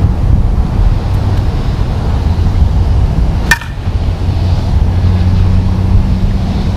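A single sharp, hard-sounding crack of a Dudley Lightning Bobby Nifong one-piece senior softball bat striking a softball, with a brief ring, about three and a half seconds in. A steady low rumble runs underneath.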